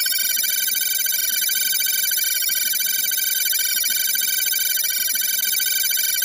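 Electric bell ringing steadily with a fast rattling trill, of the old telephone-bell kind, played as a sound-effect sample; it starts abruptly and holds one unchanging ring throughout.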